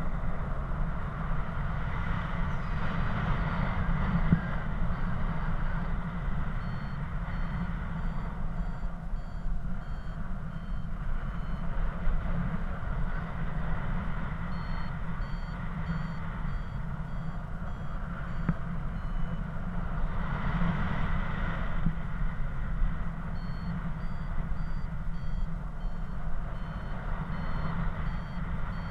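Steady low wind rush on the microphone from the airflow in flight, with a paragliding variometer's short repeated beeps coming in from several seconds in, stepping up and down in pitch and stopping for a while now and then. The beeps signal that the glider is climbing in lift.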